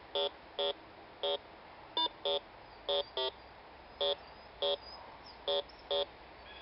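Bounty Hunter 3300 metal detector beeping as it is swept over the ground: short electronic beeps, roughly two a second, some in quick pairs, each one a signal from buried metal.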